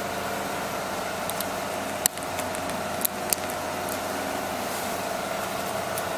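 Metal spring clamps on a sewing template snapping shut by hand, a few sharp clicks over a steady mechanical hum; the loudest click comes about two seconds in, with two more about a second later.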